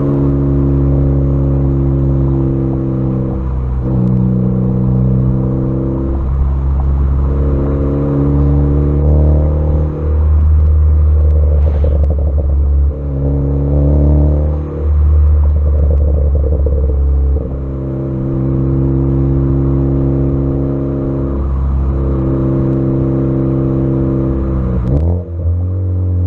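Ford Focus ST exhaust with a catless downpipe, the engine held at steady revs for a few seconds at a time, with the revs shifting every few seconds. Irregular crackles and pops come through on the overrun from a crackle tune.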